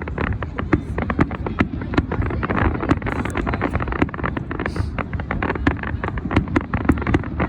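Many fireworks going off at once: a dense, unbroken run of sharp bangs and crackles, several a second, over a steady low rumble.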